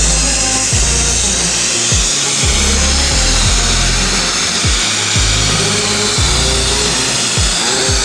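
Background music with a heavy, rhythmic bass over a steady hiss from the oxy-fuel flame of a track cutting machine cutting steel plate.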